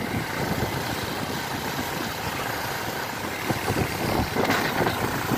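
Steady low rumble of a road vehicle's engine running.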